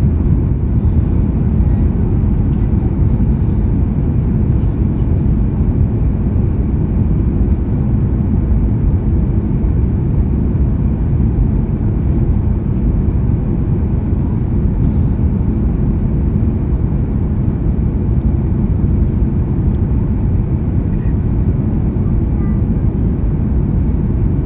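Steady low rumble of a jet airliner's engines and rushing air, heard inside the passenger cabin on the approach to landing.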